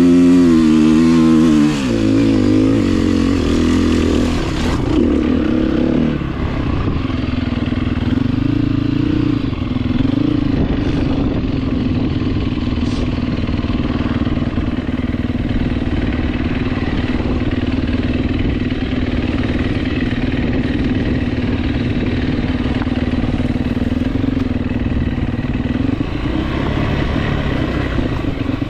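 Off-road motorcycle engine under way, revving up and down for the first couple of seconds, then holding a fairly steady note for the rest.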